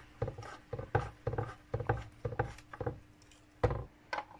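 Small screwdriver turning screws in a lamp fixture's cover: a run of irregular clicks, knocks and scrapes, a few a second, with a faint steady hum underneath.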